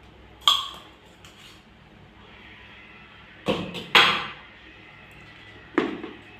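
A few sharp knocks and clatters of kitchen utensils: one about half a second in with a brief ring, a close pair after about three and a half seconds, and another near the end.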